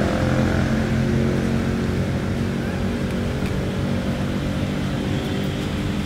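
An engine running steadily, a low drone.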